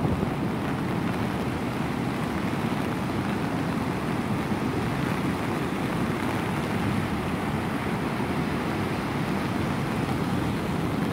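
Heavy double-overhead surf breaking and washing up the shore: a steady, unbroken wash of crashing water, heaviest in the low end.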